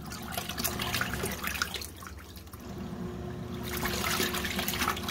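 Krib Bling portable top-load washing machine on its rinse cycle: water sloshing and trickling as the clothes swirl in the tub, over a low motor hum. A faint steady tone joins a little past halfway.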